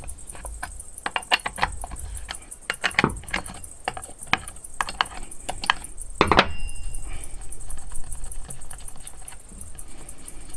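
Metal clicks and rattles as the guide-bar nuts on a STIHL 028 AV chainsaw's side cover are loosened with a T-wrench and turned off by hand, with a louder clack about six seconds in.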